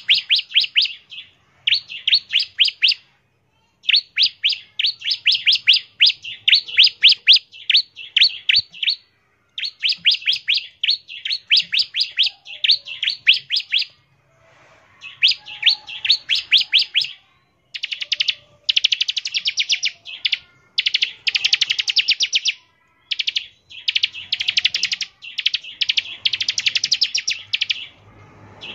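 Bar-winged prinia (ciblek) singing loud rapid-fire 'ngebren' bursts: quick trains of sharp chirps, each burst lasting one to three seconds, with short gaps between. In the second half the bursts turn denser and buzzier.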